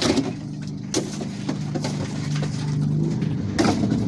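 Several sharp knocks and clatters of the chainsaw and its packaging being handled as it is taken out of its box, over a steady low hum.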